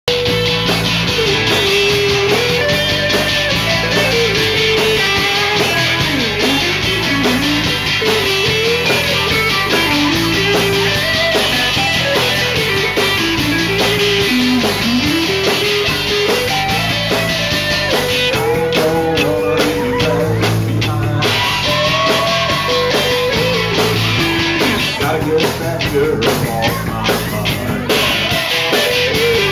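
Live rock band playing an upbeat rock-and-roll song: electric guitars, bass guitar and a drum kit, with a lead singer.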